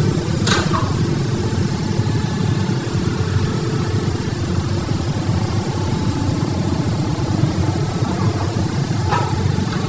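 Heavy diesel engines of the mining yard's trucks and excavator running, a steady low rumble, with a brief high squeak falling in pitch about half a second in and again near the end.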